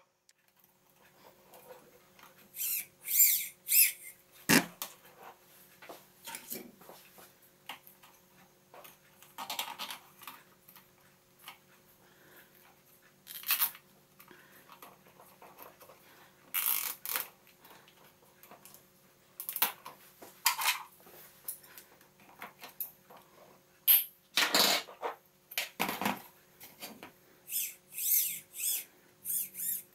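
Handling noise from hands working servo wires around a plastic drone frame: irregular clicks, rustles and scrapes, with a sharp knock about four and a half seconds in. A faint steady hum runs underneath.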